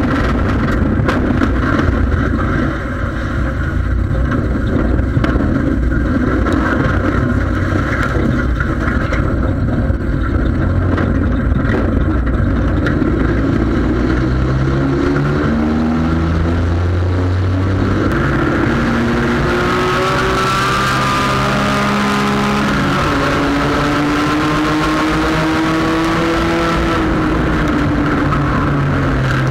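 Sport compact race car's engine heard from inside the cabin, first churning along under a clatter of rattles and knocks from the car body for about half the time, then revving up again and again in rising pitch sweeps as it accelerates back into the race.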